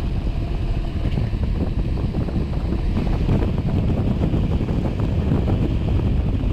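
Wind buffeting the microphone: a loud, continuous low rumble with a fainter rushing hiss above it.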